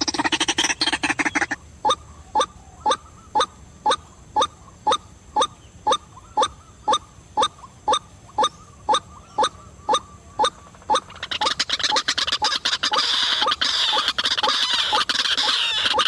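White-breasted waterhen calling a loud, monotonous 'kwak' over and over, about two short downward-sliding notes a second. Near the end the calling gives way to a dense, harsh rapid chatter.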